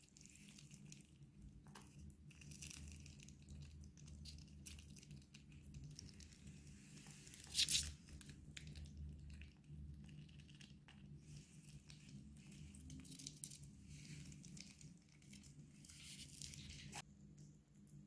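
Pet chipmunk tearing and nibbling at a tangerine and its peel: faint crinkly tearing and small wet clicks, with one louder rustle about seven and a half seconds in.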